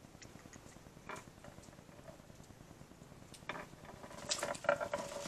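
Light clicks and clinks of fishing tackle being handled in a boat, scattered at first and busier over the last two seconds, with a brief faint metallic ring near the end.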